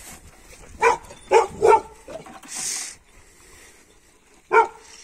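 A dog barking: three short barks in quick succession about a second in and one more near the end, with a brief hissing noise in between.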